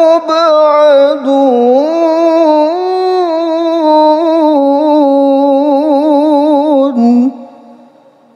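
A man's solo Quran recitation (tilawah), sung as one long ornamented melisma: the pitch glides and wavers with vibrato across held notes. The voice ends about seven seconds in.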